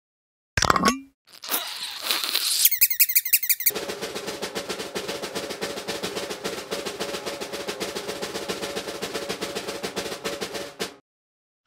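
A string of edited-in comic sound effects: a short falling sweep, a brief noisy swish, a quick run of chirps, then a rapid drum-roll-like rattle lasting about seven seconds that cuts off abruptly.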